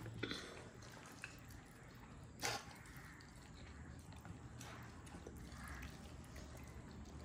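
Quiet eating sounds: a few soft, wet mouth clicks and smacks over low room noise, the loudest about two and a half seconds in.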